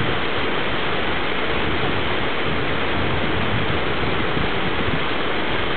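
Fast mountain stream of whitewater rushing over boulders, a steady, even roar of water.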